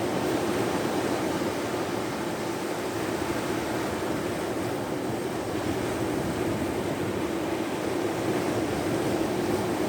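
Steady rushing noise of wind and sea at the shore, even throughout, with no distinct wave breaks or other events.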